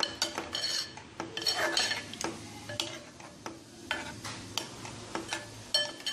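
Metal ladle stirring koftas in a thin, freshly watered curry gravy in a metal pot, with irregular clinks and scrapes against the pot's side and bottom, one or two a second.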